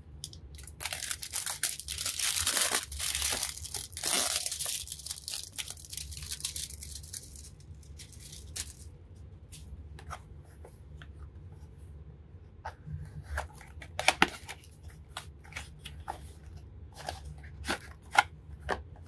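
Plastic wrapping being torn and crinkled off a trading-card deck box, dense for the first several seconds. Then scattered crackles and sharp clicks as the cardboard box is handled and opened.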